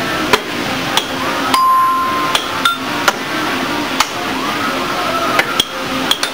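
Air hockey mallet and puck clacking: about ten sharp, irregular hits of the plastic puck against the mallets and the table's rails. Underneath run a steady hiss and the table's repeating electronic tones, with one held beep about a second and a half in.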